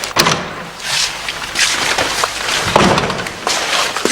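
Irregular knocks and clatter mixed with rustling noise, coming in uneven bursts.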